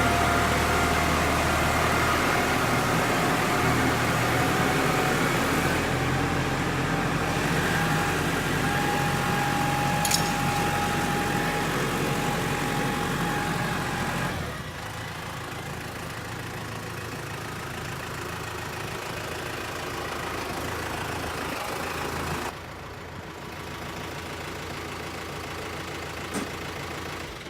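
Vehicle engine running steadily. About halfway through it gets quieter and its low hum drops away, and it shifts again a few seconds before the end.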